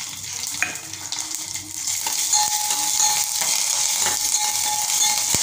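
Chopped green chillies frying in a hot-oil tempering of cumin, mustard seeds and curry leaves in a small steel pot: a steady sizzle that grows louder about two seconds in.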